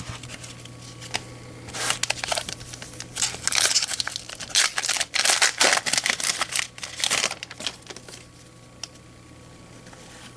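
Foil wrapper of a trading-card pack being torn open and crinkled, a crisp crackling that runs for about five seconds and then stops.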